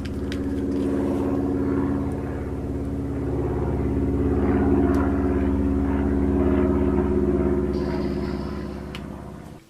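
A steady engine drone with an even low hum that starts and stops abruptly. It swells through the middle and fades near the end.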